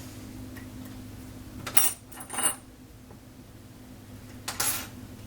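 Three short metallic clinks and rattles, about 1.8, 2.5 and 4.6 seconds in, from small metal lock-picking tools and the lock being handled, over a steady low hum.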